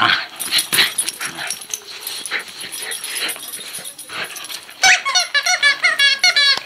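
Jack Russell terrier nosing and chewing a plush squeak toy, with rustling and shuffling. About five seconds in the toy's squeaker gives a quick run of high squeaks, about ten in under two seconds, as the dog bites down on it repeatedly.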